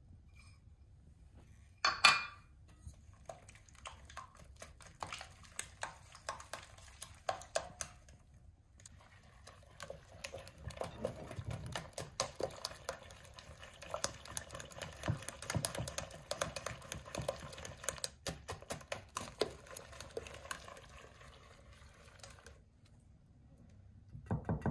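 Silicone-coated whisk beating eggs and vegetable oil in a glass bowl: quick ticking against the glass with wet sloshing, pausing briefly around eight seconds in, then denser and louder for a long stretch before stopping near the end. A sharp knock about two seconds in is the loudest sound.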